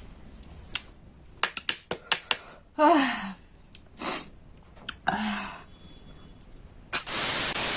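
Scattered sharp clicks, a few short breathy vocal sounds from a person, one falling in pitch, then a loud steady hiss starting about seven seconds in.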